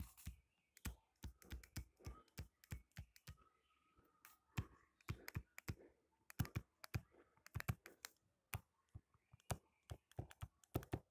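Stylus tapping on a tablet's touchscreen during handwriting: a faint, irregular run of quick clicks, several a second, with short pauses between words.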